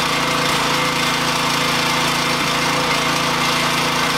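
Pressure washer running steadily, spraying water inside a plastic bucket.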